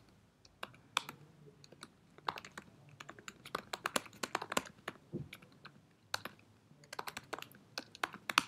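Typing on a computer keyboard: runs of quick key clicks, broken by short pauses about two seconds in and again about six seconds in.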